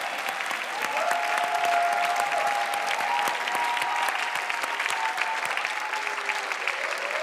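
Audience applauding steadily: a dense patter of clapping.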